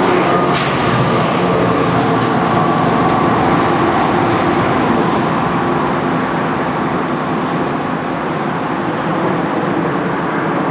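NJ Transit PL42AC diesel-electric locomotive passing close by at the rear of its train and pulling away, its engine running under load as it pushes the multilevel coaches. A few sharp clicks sound in the first couple of seconds, with a steady rumble of engine and wheels that eases slightly as it goes.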